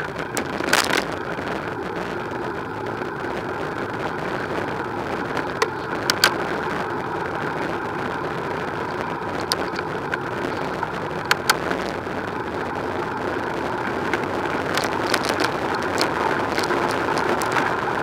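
Steady rolling noise of a bicycle ride on tarmac, picked up by a bike-mounted camera: tyre hum and wind on the microphone, with a few sharp clicks along the way.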